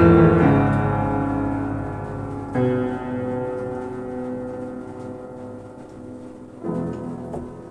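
Piano improvisation: slow chords struck and left to ring out and fade, with a new chord about two and a half seconds in and another near the end, the music dying away.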